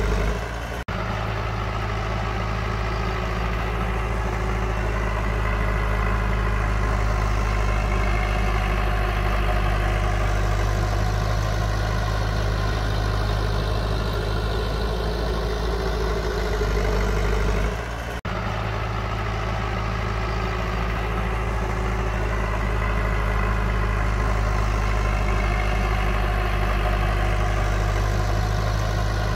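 Heavy diesel engine of an earthmoving machine running steadily. Its sound swells and eases every several seconds, and it breaks off abruptly for an instant twice, about a second in and about eighteen seconds in.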